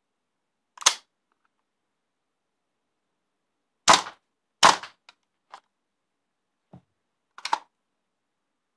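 WE M4A1 gas blowback airsoft rifle firing single shots, each a sharp crack as the bolt cycles: one about a second in, then two more close together a few seconds later. Softer clicks of the rifle being handled follow, with a brief clatter near the end.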